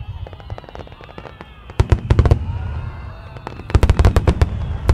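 Aerial fireworks bursting: two rapid clusters of sharp crackling bangs, about two seconds in and again about four seconds in, over a steady low rumble.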